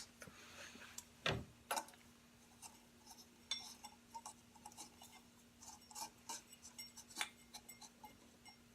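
Faint scattered clicks and small taps, with one sharper knock about a second in: a light bulb being handled and screwed into the bench grinder's flexible work-light socket.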